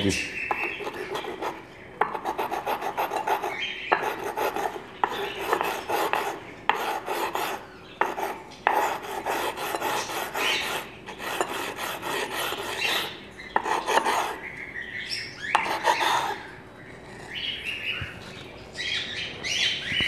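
Black peppercorn being ground between a rough stone block and a flat wet stone: a run of scratchy rasping strokes, roughly one a second, as the peppercorn is worn down to a paste.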